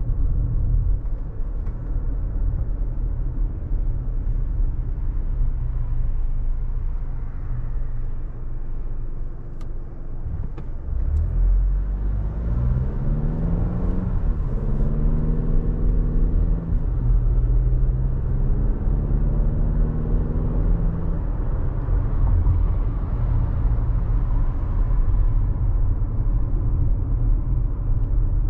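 Car driving with a steady low road and engine rumble. About twelve seconds in, the engine note rises as the car accelerates, stepping down and climbing again with the gear changes, then settles back into road rumble.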